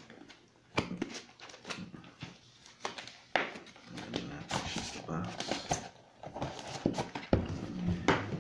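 A cardboard product box handled close to the microphone: a string of irregular knocks, taps and scrapes as it is turned over in the hands.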